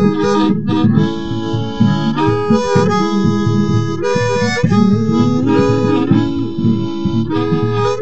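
Instrumental music: held chords and short melodic phrases from a reedy-sounding instrument, the notes changing every half second or so.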